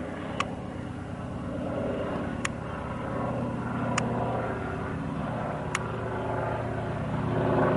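Antonov An-2 biplane's nine-cylinder radial engine droning steadily as the plane passes low overhead, growing louder near the end. Four faint, sharp clicks sound over it.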